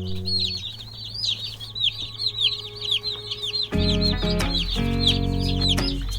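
A crowd of meat-bird chicks peeping nonstop in many quick, high chirps. Background music with held chords fades out early and comes back about two-thirds of the way through.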